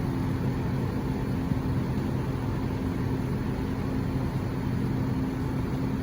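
Fujitsu Halcyon inverter mini-split air conditioner running, a steady low hum that holds even throughout.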